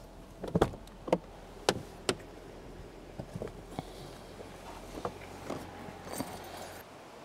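Jeep Gladiator's driver's door being unlatched and swung open: a handful of sharp clicks and knocks, loudest in the first two seconds, then lighter knocks. A low steady hum stops about five seconds in.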